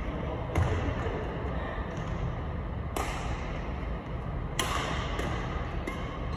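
Badminton rackets striking a shuttlecock during a rally: several sharp cracks one to two and a half seconds apart, ringing in a large hall, over a steady low hum.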